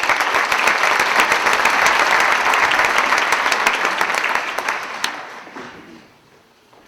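Concert audience applauding, steady for about four seconds and then dying away, gone about six seconds in.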